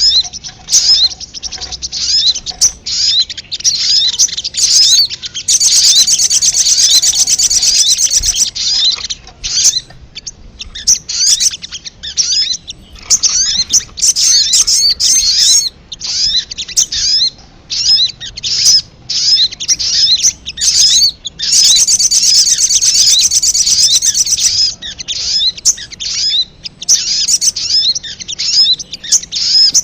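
Crimson sunbird (sogon) calling without pause: a rapid run of high, sharp chirps, broken twice by a fast, even trill, about six seconds in and again around twenty-two seconds.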